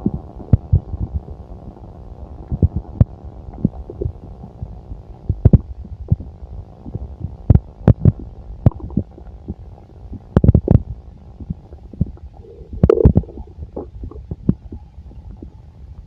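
Bowel sounds of a full stomach: a low rumble broken by irregular pops and clicks, with a short gurgle near the end.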